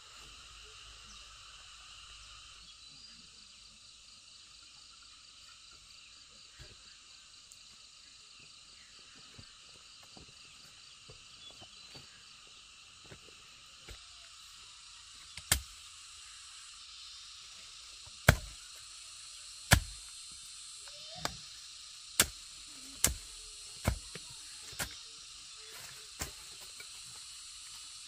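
Steady chirring of insects, with a series of about nine sharp knocks in the second half, irregular and roughly a second apart.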